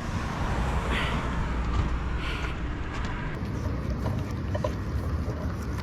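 Steady roadside traffic noise, a low rumble of vehicles on the highway.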